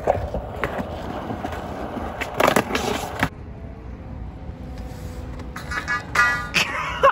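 Skateboard wheels rolling on smooth concrete, with a steady rumble and scattered sharp clicks from the board. A louder stretch of rolling comes in the middle, and a few sharp clacks of the board come near the end.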